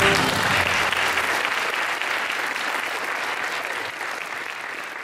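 Audience applauding at the end of a dance number, the clapping slowly dying away.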